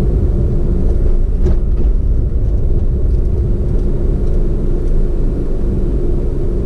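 A road vehicle driving along: steady low engine and road rumble.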